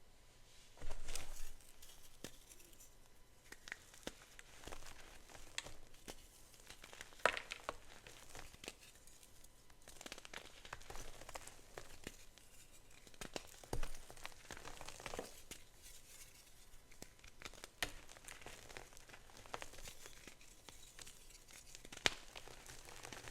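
Gym chalk being crushed by hand: irregular crackling and crumbling, with a few louder sharp snaps scattered through.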